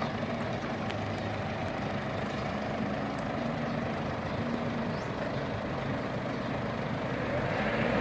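Mitsubishi Pajero 4M40 diesel engine idling steadily, beginning to rev up near the end.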